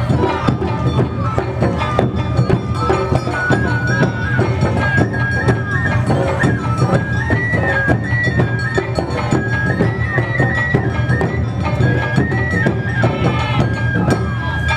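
Traditional Japanese summer-festival music: a high melody line stepping between held notes over dense drumming, continuous and loud.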